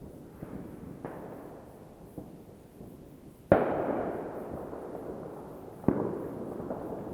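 Fireworks going off: a few faint pops, then two loud bangs about halfway through and near the end, each trailing off in a long echoing rumble.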